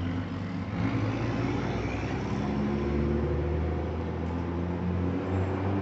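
Truck engine running as it passes, a steady low drone whose pitch shifts, with a faint rising whine about a second or two in.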